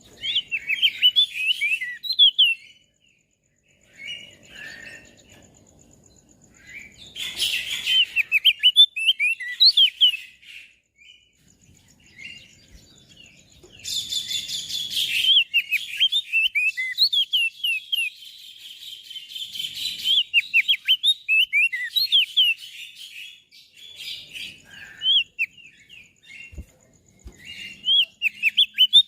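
Opior jambul (crested white-eye) singing in rapid strings of sharp chirps and short whistled notes, in several bursts of a few seconds each with short pauses between.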